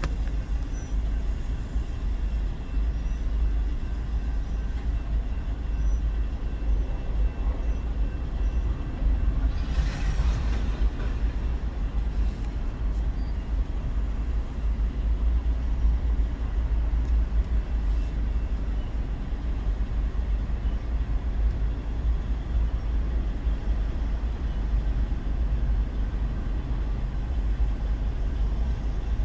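Freight train of tank cars rolling past, a steady deep rumble heard through a car's windows, with a brief hissing swell about ten seconds in.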